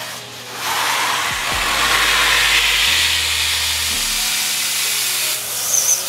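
Miele Compact C2 canister vacuum cleaner's 1200-watt motor running, a loud steady rush of air drawn through the hose, coming up about half a second in.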